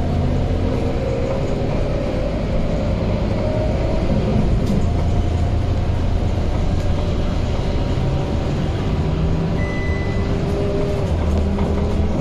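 Scania K230UB city bus heard from inside the saloon while driving: diesel engine running with a loud whine from its ZF automatic gearbox, the whine's pitch drifting slowly with road speed. A brief high beep sounds about ten seconds in.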